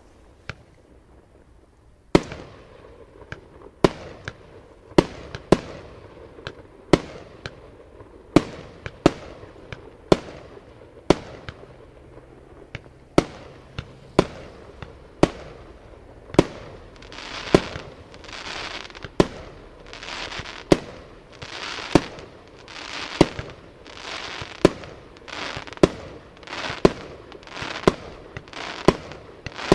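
Aerial firework shells bursting one after another, a sharp bang about once a second, starting about two seconds in. In the second half each bang is followed by a short hiss.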